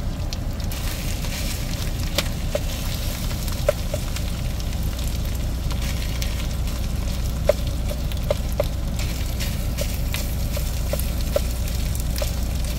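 Ground chorizo and chicken sizzling in a skillet, with scattered sharp clinks as a meat-chopping tool strikes the pan while breaking up the meat.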